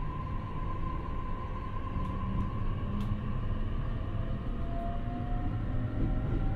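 Running sound inside the motor car of a JR East E531-series electric train: a steady rumble of wheels on rail under a traction-motor whine whose tones climb slowly in pitch as the train gathers speed. One sharp click about three seconds in.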